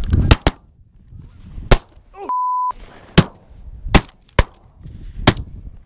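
A volley of shotgun blasts from several hunters firing at landing Canada geese: about seven shots in five seconds, two close together at the start, then single shots roughly a second apart. A short steady beep sounds a little over two seconds in.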